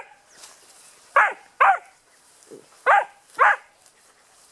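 A puppy barking: four short, high yapping barks, each falling in pitch, coming in two pairs about a second and a half apart.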